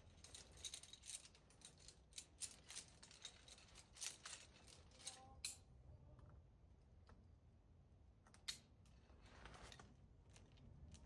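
Near silence with faint scattered clicks and light rustles for the first five seconds or so, then a single click and a brief soft rustle near the end.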